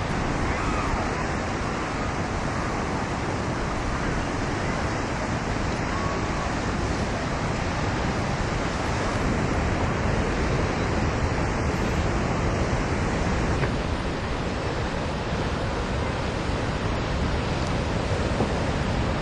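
Steady rushing noise of wind and surf, with wind rumbling on the microphone.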